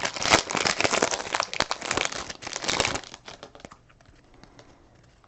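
Foil trading-card pack being torn open and crinkled, a dense run of crackling that dies away after about three seconds.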